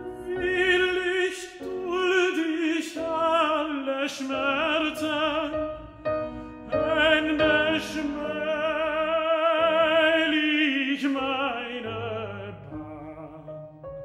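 Operatic tenor singing long, sustained phrases with wide vibrato, accompanied by a Bösendorfer grand piano. The voice stops shortly before the end and the piano carries on alone.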